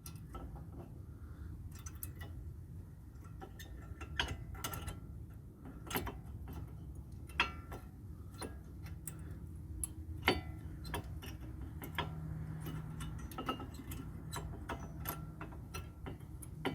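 Irregular light metallic clicks and taps of new brake pads and their clips being handled and fitted into a car's front brake caliper bracket, over a low steady hum.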